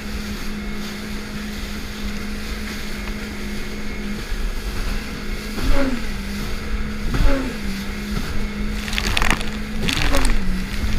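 Jet ski engine running steadily at speed, its pitch briefly rising and falling several times in the second half as the craft rides over waves. Bursts of spray and water slapping the hull come in near the end.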